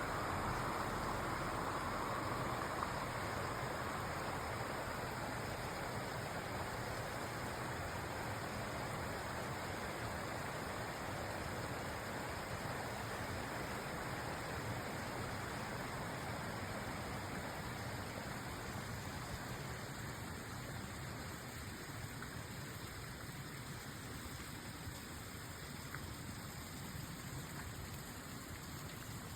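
Small forest stream flowing through tree roots: a steady rush of running water that slowly grows a little quieter.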